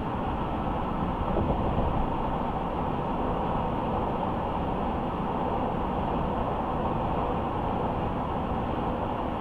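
Steady road noise of a car being driven: a constant rumble of tyres and engine with no change in pace.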